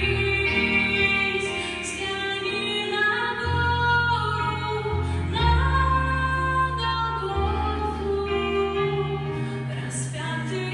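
Music: a woman singing a song over instrumental accompaniment, with long held bass notes that change every second or two.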